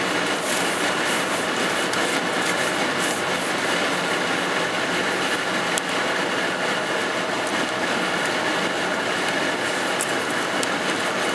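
Steady tyre and wind noise heard inside a car's cabin at motorway speed, an even rumble that doesn't change.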